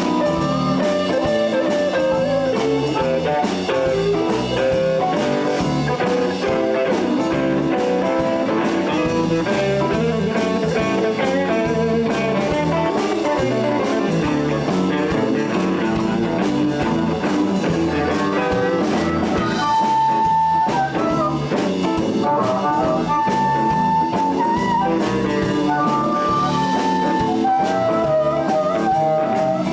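Live blues band playing an instrumental break with guitar, bass and drums, with a few long held high notes about two-thirds of the way through.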